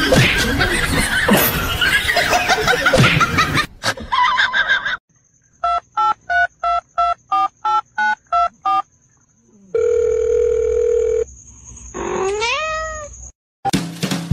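Music with voices for the first few seconds, then a run of about ten short, evenly spaced electronic beeps, about three a second, and a steady beep tone lasting about a second and a half. Near the end comes a cat's short rising meow.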